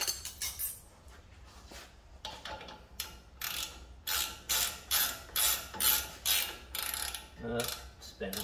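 Hand ratchet clicking in quick back-and-forth strokes, about two a second, as a nut is run down on the upper ball joint stud of a truck's front suspension.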